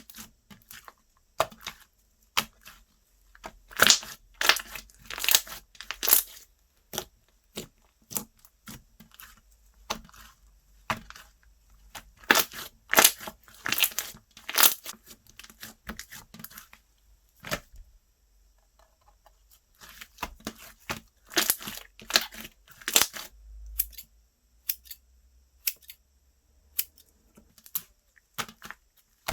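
Slime being stretched, pressed and poked by hand, giving irregular sticky crackles, tearing sounds and pops in clusters, with a short lull a little past the middle.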